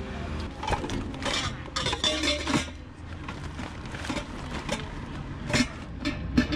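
Things being packed into a car boot: a large woven plastic shopping bag rustling as it is handled, and items inside it knocking and clinking against each other in a string of separate clatters, busiest about two seconds in.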